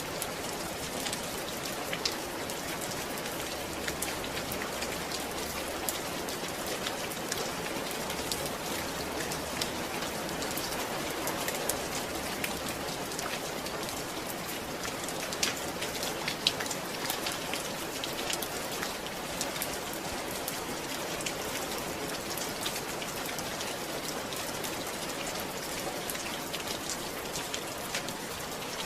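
Steady rain falling, with many individual drops ticking on a surface over an even hiss.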